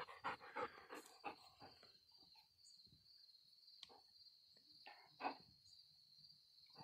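A dog panting quickly close by, over the steady high-pitched chirring of insects, with one short louder sound about five seconds in.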